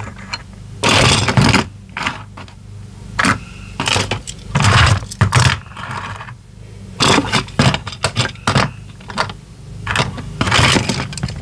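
Small die-cast toy cars being picked up and set down in a cardboard box: irregular clicks, clinks and scrapes as they are lined up in rows.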